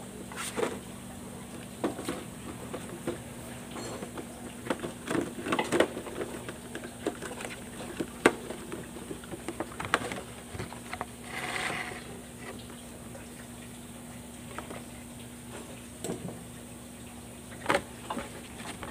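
Scattered clicks and clunks of a mechanic handling filters and parts in a truck's engine bay during an oil and filter change, over a steady low hum, with a short rushing hiss just past the middle.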